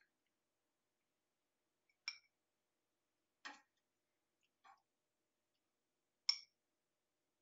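Four short, sharp taps and clicks spaced a second or two apart, with near silence between them; the last is the loudest, and it and the first have a light metallic clink.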